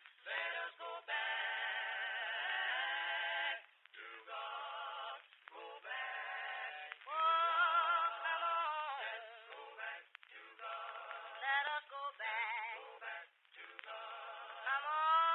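A sung melody with a strong wavering vibrato, delivered in phrases of a few seconds with short breaks between them. The sound is thin, with no bass.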